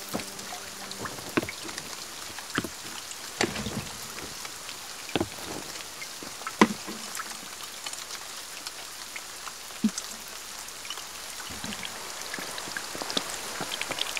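Steady rain falling: an even hiss with irregular sharp taps of single drops landing close by, one noticeably louder about six and a half seconds in.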